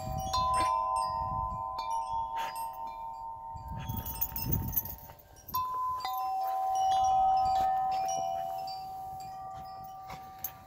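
Chime-like ringing tones at several pitches, overlapping and each held for several seconds. New tones sound about halfway through, and the ring is loudest shortly after.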